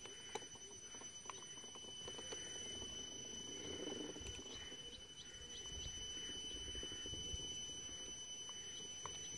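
Gauge 3 model locomotive tender drive running along the track: its twin electric motors and belt-and-pulley gearing give a faint steady high whine over a low rumble, with light irregular clicks as the wheels roll.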